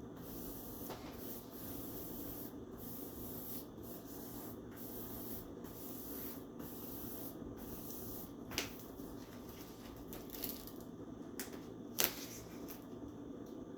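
Vinyl contact paper rubbed and smoothed down in repeated strokes, about one a second, with a couple of sharp clicks.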